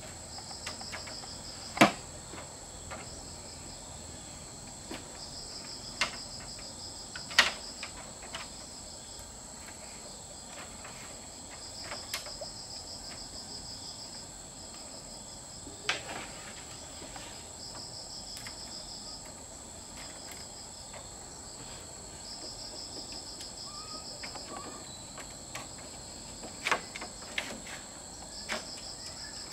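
Insects trilling in repeated bursts about a second long over a steady, high-pitched drone. Scattered sharp knocks or taps cut through, the loudest about two and about seven seconds in.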